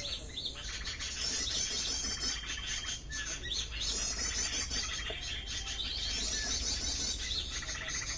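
Recorded bird calls played through a speaker to lure birds: bursts of rapid, high-pitched chirping that repeat about every three seconds, with a thin held whistle between some bursts.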